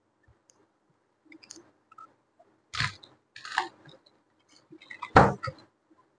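Packaging of a camera box being opened by hand: scattered clicks and crinkles, with three louder rustles about three, three and a half and five seconds in.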